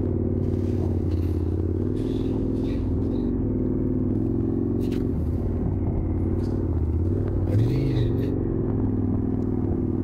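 KTM 1290 Super Adventure's V-twin engine running steadily at low revs as the motorcycle rolls slowly along, with a brief rise and fall in engine pitch about eight seconds in.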